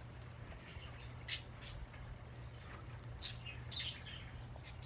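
Faint bird chirps: a few brief, high calls spaced a second or two apart, over a low steady hum.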